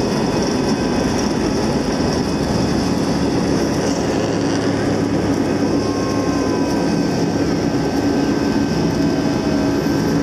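Airbus A320 jet engines running steadily: a loud, even rumble with a faint steady whine on top.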